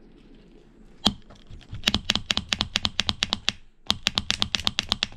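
A utility knife blade cutting through stiff clear plastic clamshell packaging: one sharp snap about a second in, then two runs of rapid clicking at about nine clicks a second as the blade works through the tough plastic.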